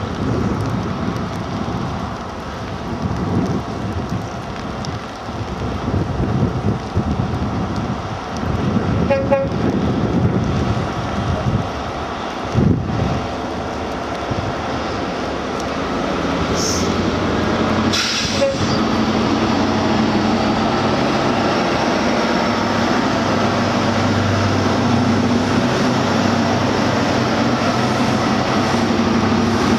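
A First Great Western High Speed Train (InterCity 125) running past, wheels rumbling on the rails and the Class 43 power car's diesel engine droning. The drone grows steadier and deeper about halfway through as the power car comes by, with a couple of brief sharp clanks before it.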